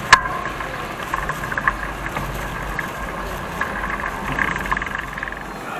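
Motor vehicle running along a street: a steady low engine and road rumble with light, irregular rattling clicks. The rumble stops near the end.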